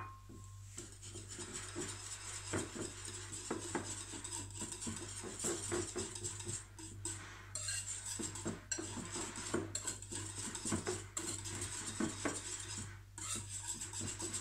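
Hand whisking of a thick yogurt-and-quark mixture with a wire whisk in a glass bowl: a steady wet scraping with quick, irregular clicks of the wires against the glass, breaking off briefly near the end.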